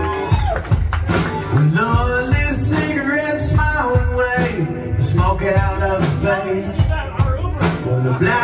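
Live band playing amplified: electric guitars and drums under a man singing lead into a microphone.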